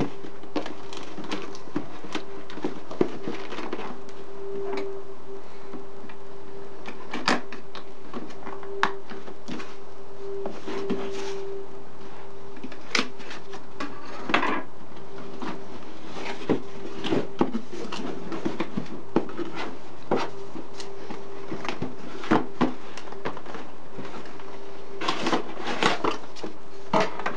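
Cardboard packaging being handled on a wooden desk: a box lifted, turned and set down and its inner tray slid out, with many short scrapes, taps and knocks. Under it runs a steady, single-pitched hum from a loud boiler.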